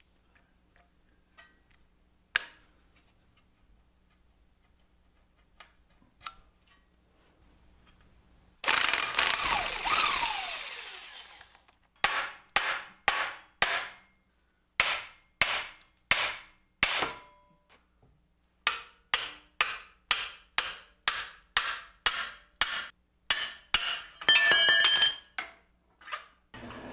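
Hammer blows on the steel steering knuckle and tie rod end, about two a second, driving the tapered stud out of the knuckle, each strike ringing briefly. Before them come a few small clicks of parts being handled and a steady burst of about two seconds from a tool.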